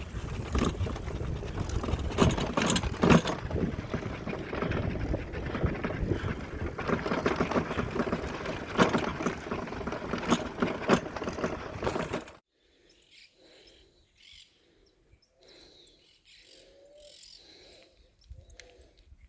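Loud rough noise with scattered knocks and clicks that cuts off abruptly about twelve seconds in, leaving quiet outdoor air with a dove cooing softly over and over.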